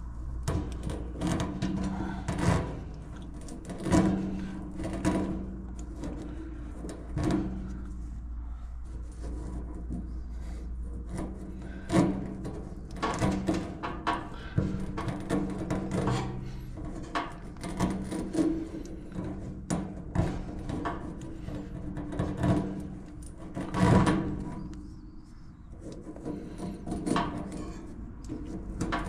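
Appliance parts being handled during a dryer teardown: irregular knocks, clunks and scraping, over a steady low hum.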